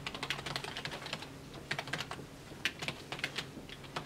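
Typing on a computer keyboard: quick, irregular key clicks with a brief pause a little past the middle.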